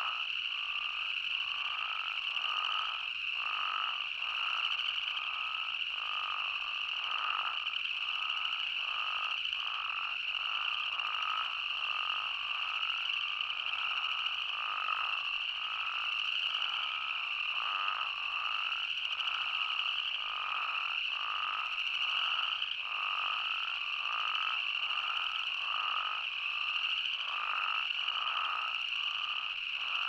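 Night chorus of spadefoot toads and boreal chorus frogs calling together: a steady, high-pitched trilling chorus, with shorter, lower calls repeating about once a second over it.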